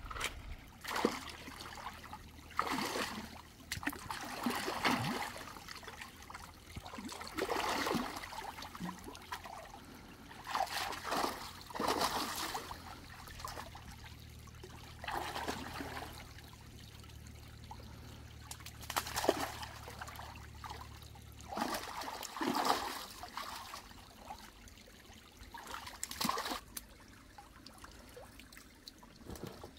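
Shallow water splashing and sloshing in irregular bursts as hands and legs work through a nearly drained stream pool. Under it a faint low engine hum, which stops about two-thirds of the way through.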